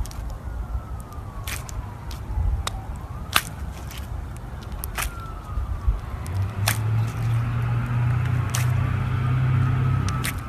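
Slime being squeezed and stretched by hand, with scattered sharp clicking pops; a low steady hum comes in about six seconds in.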